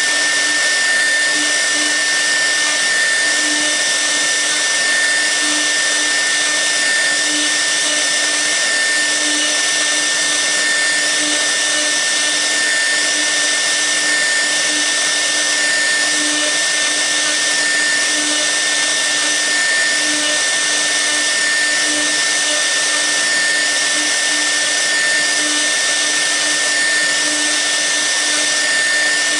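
The 6 kW air-cooled spindle of a 1325 CNC router running steadily while a V-bit carves the workpiece: a continuous high whine over a fan-like hiss.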